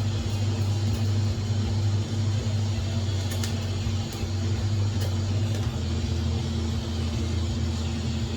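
TIG welding arc at about 55 amps on steel, a steady electrical hum with hiss; the low hum breaks off briefly a few times as the arc is interrupted.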